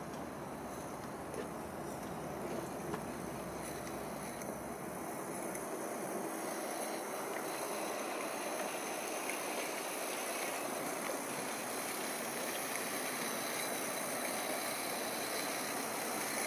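Meths-fired G-scale live steam tram with a single double-acting oscillating cylinder, giving a steady hiss of steam as it runs slowly along the track, growing gradually louder as it draws near.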